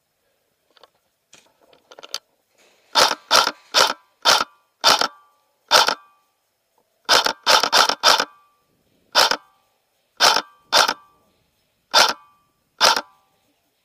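Airsoft gun firing single shots: about fifteen sharp cracks at an uneven pace, some in quick runs of three or four, starting about three seconds in. Faint clicks come before the first shot.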